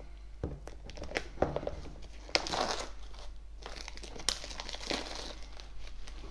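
A small cardboard box being handled and prised at, hard to open: irregular rustling and scraping of card, with a few sharp taps and clicks.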